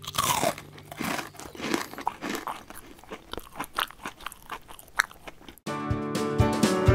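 Crunching and chewing of crisp breadcrumb-coated fried fish chops: irregular crackly crunches for about five and a half seconds. Plucked-guitar music with a steady beat starts near the end.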